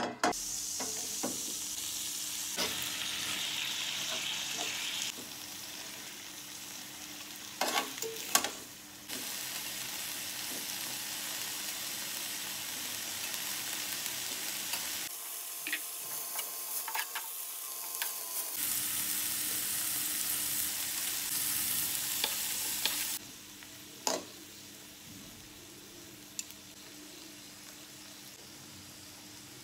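Shrimp and spinach frying in hot coconut oil in a non-stick pan: a steady sizzle with a few sharp knocks on the pan, dropping to a quieter sizzle near the end.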